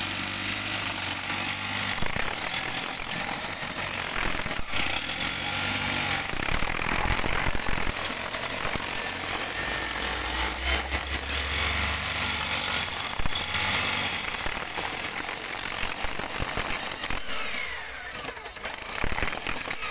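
Handheld electric demolition hammer (jackhammer) hammering steadily as it chisels into the hard floor of a trench. It breaks off briefly near the end, then starts again.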